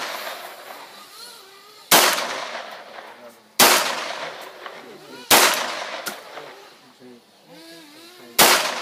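Four pistol shots from an Ekol Firat Compact traumatic pistol, each a sharp crack followed by a fading echo. The first three come about a second and a half to two seconds apart; the fourth follows after a longer pause, near the end.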